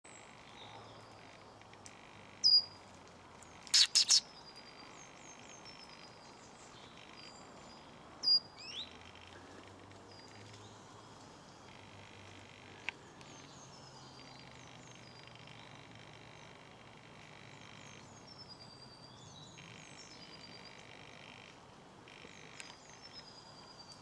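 Small songbirds calling and singing in pine woodland: many short, thin, high chirps throughout, with a few loud close notes about two and a half and eight seconds in and a burst of three sharp loud strokes around four seconds in.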